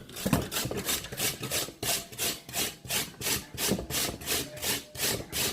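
Peeled raw potatoes being grated by hand on a metal grater, a rhythmic rasping at about two to three strokes a second.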